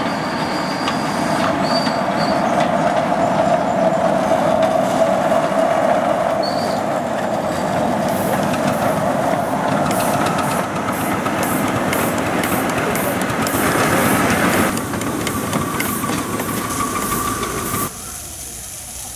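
Miniature steam train running on 7.25-inch-gauge track: steam hissing over the rolling of the wheels. From about eight seconds in, the wheels click regularly over the rail joints, about twice a second. Near the end it drops to a quieter steady hiss.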